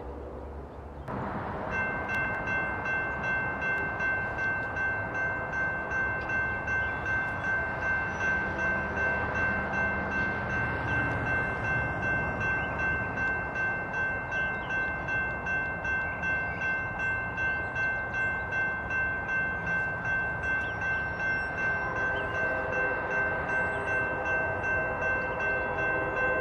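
Railroad grade-crossing bell ringing steadily, with a regular pulse of about two strokes a second. In the last few seconds an approaching train's locomotive horn sounds over it.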